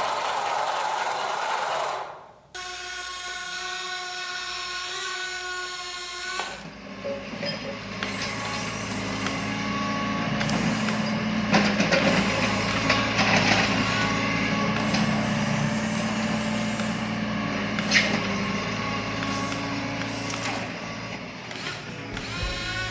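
Small electric motors running: a steady high whine for a few seconds, then a lower steady hum with scattered clicks and knocks.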